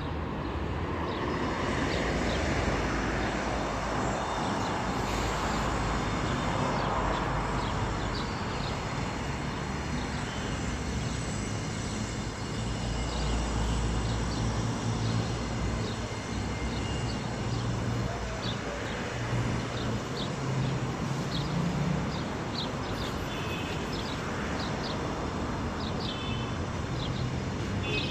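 Street traffic: a steady mix of passing vehicle engines and tyre noise. A low engine hum grows stronger in the second half.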